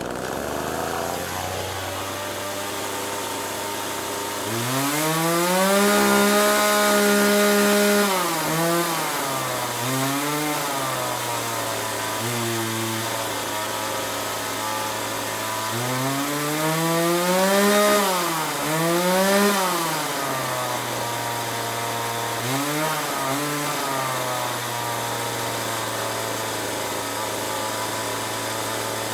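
Chainsaw engine idling and revved repeatedly with no cutting. There is a long rev held for about three seconds, then several quick throttle blips and rising-and-falling revs, each dropping back to a steady idle.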